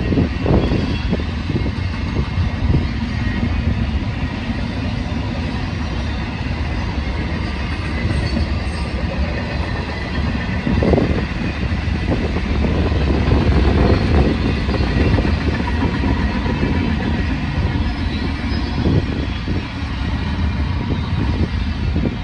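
Double-stack container cars of a freight train rolling past: a steady rumble of steel wheels on rail, with an occasional knock from the cars.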